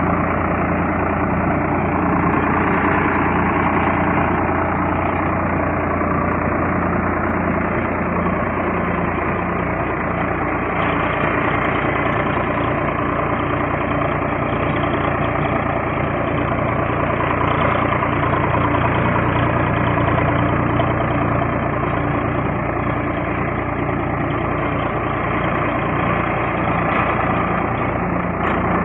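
Swaraj 742 XT tractor's three-cylinder diesel engine running steadily under load while ploughing a field, heard close up beside the engine.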